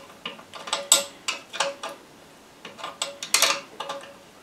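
Irregular metallic clinks and light scraping of a 10 mm spanner worked by hand on a scooter exhaust's mounting nut, some clinks ringing briefly, the loudest about a second in and around three seconds in.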